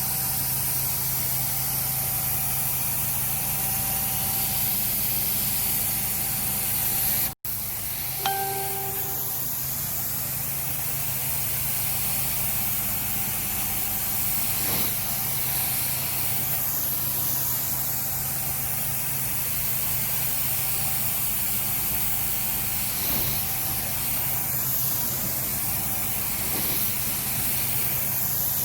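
Carpet-cleaning extraction machine running: a steady hiss of spray and suction over a constant machine hum. The sound breaks off for an instant about seven seconds in, and a short tone sounds just after.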